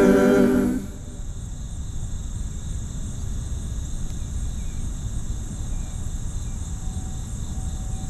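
The last held chord of unaccompanied harmony singing stops under a second in. It gives way to outdoor evening ambience: a steady, evenly pulsing high insect chorus over a low rumble, with a few faint chirps.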